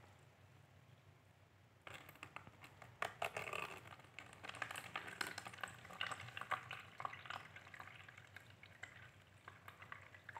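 Water running out of the neck of an upturned plastic-bottle planter in a thin stream and splashing into a plastic cup of muddy water, an irregular trickle and patter that starts about two seconds in. It is runoff draining through the grass-planted soil.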